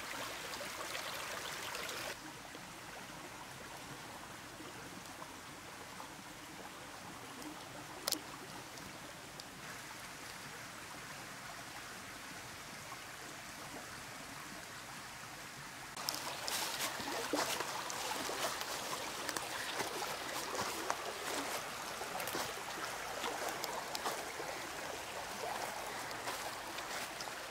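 Shallow woodland creek running and trickling over rocks. From about sixteen seconds in, crackling rustles join it, made by footsteps through dry leaf litter along the bank.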